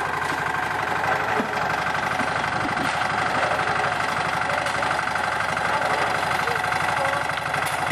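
Small engine of a portable concrete mixer running steadily, with an even, rapid firing beat.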